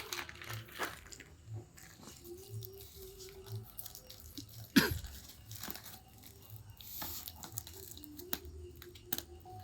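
Packaging being handled and opened: irregular crinkling and rustling with scattered clicks, and one sharp, loud snap about five seconds in.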